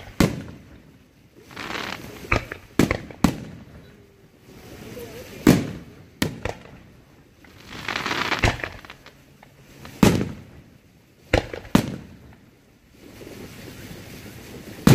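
Aerial fireworks shells going up with a hiss and bursting with sharp bangs, about ten in all, some in quick pairs.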